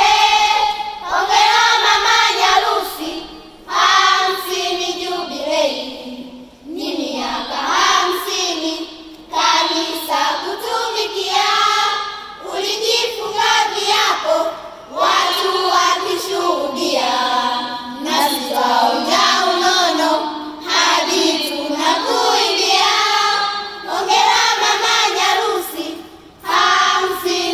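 A group of children singing a poem together in chorus, in phrases with short breaks for breath between them.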